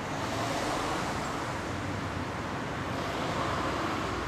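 Steady road traffic noise from a city street, swelling slightly about a second in and again near the end.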